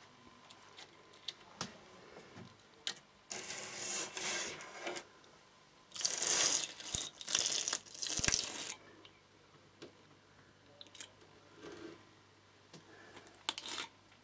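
Plastic vacuum-bag film and release layers crackling and tearing as they are pulled off a freshly vacuum-infused kiteboard. The sound comes in two longer bursts, the louder about six seconds in, with scattered clicks and crinkles in between.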